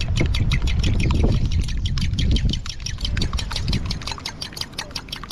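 A fork whisking a beaten egg in a bowl, clicking against the bowl's sides in a quick, even rhythm of about eight strokes a second, over a low rumble.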